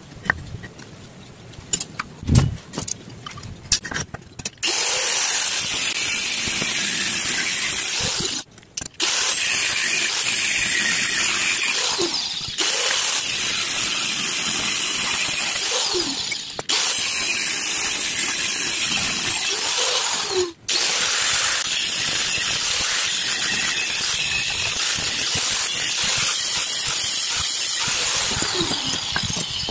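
Angle grinder with a thin cut-off disc cutting through flat steel plate: a loud, steady, shrill cutting noise, broken off briefly a few times between cuts and easing off near the end. It is preceded by a few sharp clicks and knocks of metal pieces being handled.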